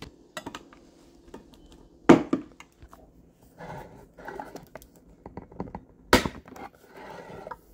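Hand-held manual can opener being clamped onto a can and cranked around the lid: bursts of quick faint clicking and scraping, with two sharp clunks, about two seconds in and about six seconds in.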